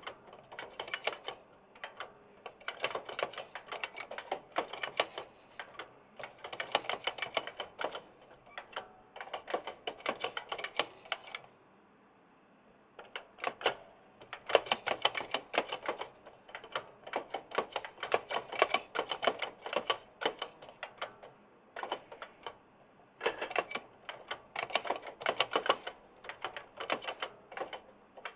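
Fast, bursty typing on an oversized mechanical keyboard with clicky Kailh Blue switches, the keys clacking in quick runs with short breaks and one longer pause a little before halfway.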